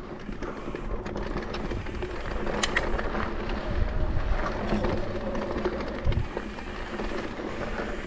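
Mountain bike rolling fast down a dirt trail: a steady rumble of tyres on dirt, with scattered knocks and rattles from the bike over bumps, louder around the middle.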